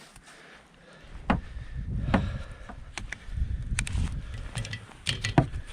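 Snow being brushed and knocked off the front of a car, with several sharp knocks of the brush against the car over uneven low rumbling.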